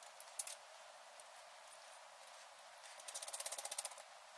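Light metal clicks as nuts and washers are fitted onto the brake bracket's T-bolts at the axle flange of a Ford 9-inch rear end. A couple of sharp clicks come at the start, then about three seconds in a quick, even ratchet-like run of clicks lasts about a second.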